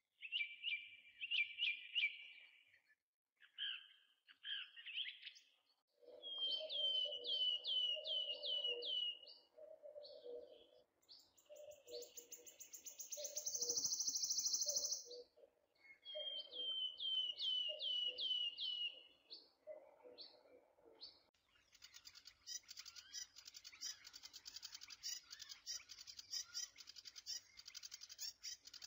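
Birds singing and calling: several quick runs of falling chirps among other calls, and a buzzy trill near the middle, then dense, continuous chirping for the last quarter.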